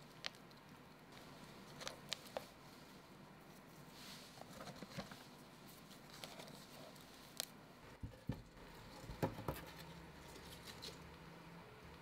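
Faint, scattered rustles and small clicks of fingers pressing plants and dry moss into a terrarium's substrate among cork bark, with a short run of louder crackles about nine seconds in.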